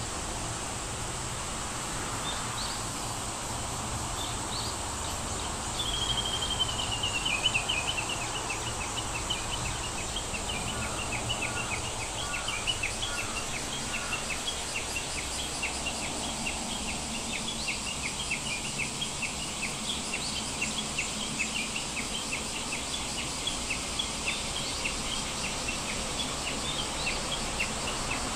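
Bird calls over a steady background hiss: a descending trill about six seconds in, then a long run of short chirps repeated about three times a second.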